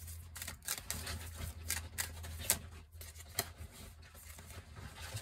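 Tarot cards being handled and sorted by hand: a run of light, irregular clicks and rustles over a low steady hum.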